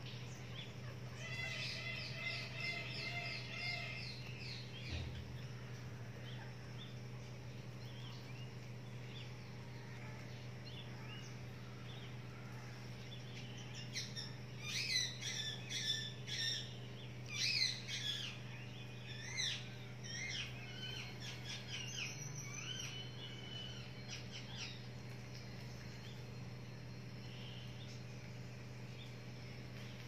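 Parakeets calling: a quick, even run of chirps a few seconds in, then, about halfway through, a cluster of loud, sharp screeches and downward-sliding calls, with scattered calls after. A steady low hum lies under it.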